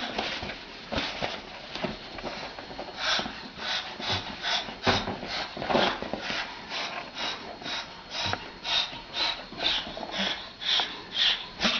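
An animal making a rapid series of short, noisy sounds, about two to three a second, starting a few seconds in.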